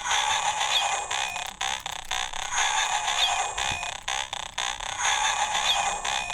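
Bandai DX Bugster Buckle toy belt with the Dangerous Zombie Gashat inserted, playing an electronic standby loop through its small speaker: a buzzy phrase with a short rising chirp, repeating about every two and a half seconds.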